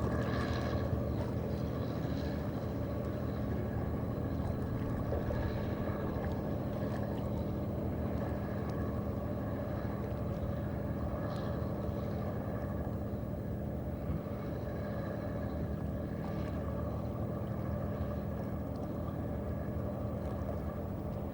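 Boat engine running with a steady, even hum, with a few faint brief high sounds over it.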